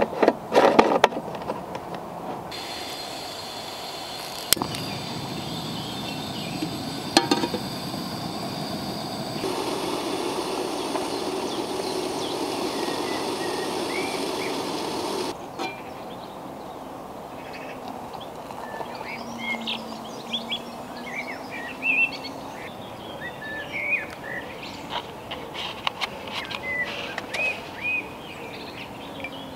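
A few sharp clicks, then a gas camping stove burning under a kettle with a steady hiss that grows stronger partway through and cuts off suddenly about fifteen seconds in. After that, birds chirp and a spoon clinks a few times against a mug.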